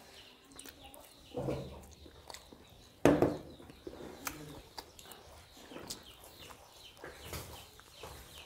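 Eating by hand from steel plates: faint clicks and rustles of fingers working rice, with a brief sound about a second and a half in and one sudden, loud, short sound about three seconds in.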